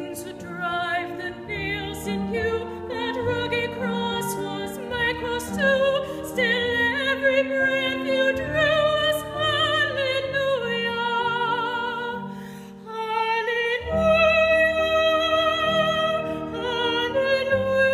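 A solo classical soprano singing with a strong vibrato, holding long notes over sustained low accompaniment chords. The voice drops away briefly about two-thirds of the way through, then returns louder for the next phrase.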